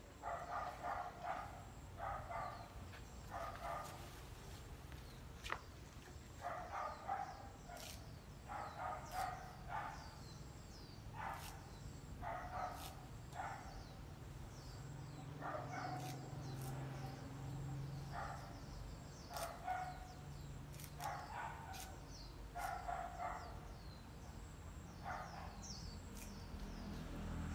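A dog barking over and over, one bark about every second in short runs, with faint high bird chirps between the barks.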